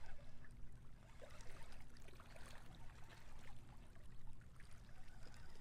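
Seawater washing and trickling among jetty rocks, a steady wash with small scattered splashes.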